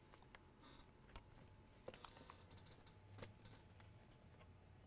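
Near silence: faint room tone with a few scattered soft clicks of small parts being handled on the bench.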